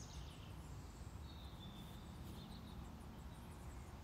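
Quiet room tone: a low steady hum, with a faint high chirp about a second in.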